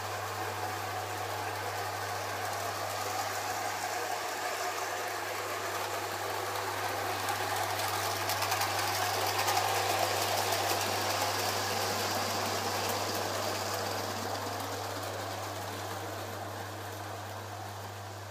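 Electric O gauge tinplate model train, two Britannia locomotives double-heading, running on three-rail metal track: a steady rattling rumble of motors and wheels with a constant low hum. It grows louder as the train passes close, about halfway through, then slowly fades as it moves away.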